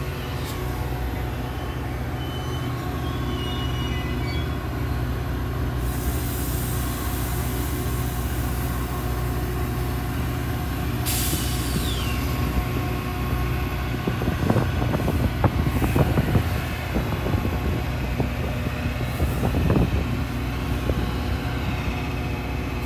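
Train's diesel locomotive engine running steadily, with a long hiss of released air from about six seconds in, a sharp hiss near eleven seconds, and a run of metallic clanks a few seconds later.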